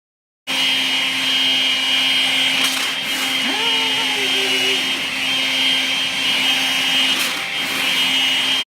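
Makita cordless paper-bag vacuum cleaner running steadily in high-power mode, a high whine over a lower hum; it starts abruptly and cuts off just before the end. A short rising, then held, pitched call sounds over it about three and a half seconds in.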